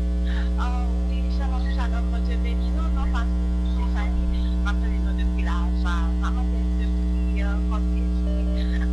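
Loud, steady electrical mains hum with its buzzing overtones on the broadcast audio line, with faint, intermittent voices underneath.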